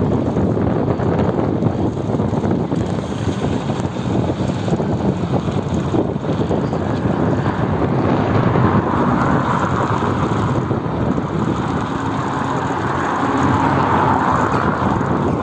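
Steady noise of wind on the microphone and bicycle tyres rumbling over brick paving while riding. In the second half, road traffic swells louder.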